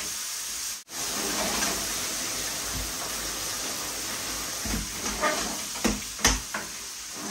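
Kitchen tap water running steadily onto chickpeas in a stainless steel colander in a steel sink as they are rinsed. The flow stops a bit past halfway, and a few knocks of the metal colander follow.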